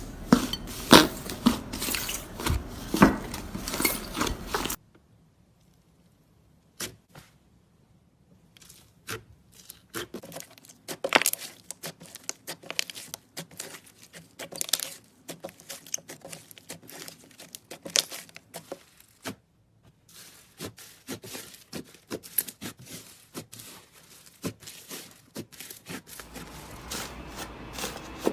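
Slime being squeezed, stretched and poked by hand, giving a dense run of sticky clicks, crackles and small pops. The sound changes abruptly about five seconds in and again near the end, as one short clip gives way to the next.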